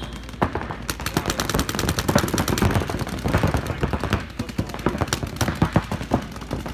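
Paintball markers firing rapid, overlapping strings of shots, growing denser about a second in.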